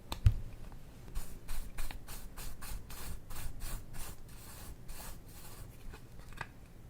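Repeated short scraping strokes, about three a second, following a single knock just after the start.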